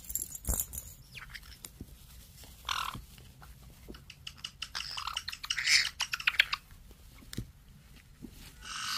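Two black-headed caiques wrestling, with scuffling and clicking of beaks and feet. They give a short squawk about three seconds in and a burst of sharp squawks and chirps around five to six seconds, and a held call starts near the end.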